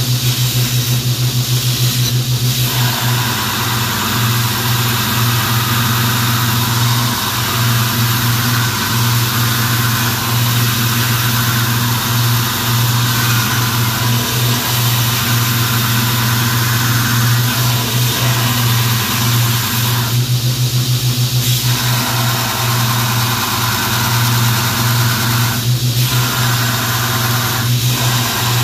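Belt grinder running with a steady motor hum while a 1095 steel knife blank is ground against the belt by stock removal, a rough grinding hiss that starts a few seconds in and breaks off briefly a few times.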